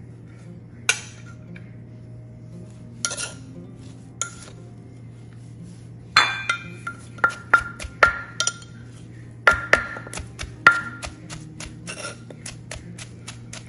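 A metal spoon clinks against a clay mortar a few times. Then, from about six seconds in, a wooden pestle pounds shredded green mango in the clay mortar with quick, light strokes, about two to three a second.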